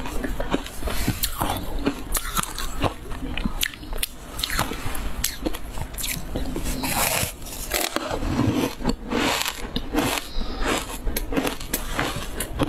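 Close-miked biting and chewing of a crunchy, crumbly green powder-coated food, with many irregular crunches.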